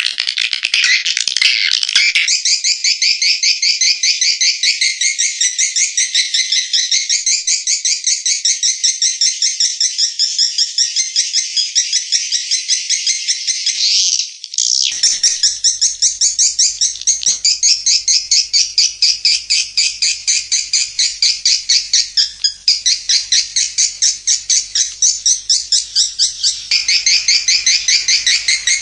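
Swiftlet call recording used to lure swiftlets into a nesting house: dense, rapidly repeating high chirps from many birds, with a brief break about halfway through.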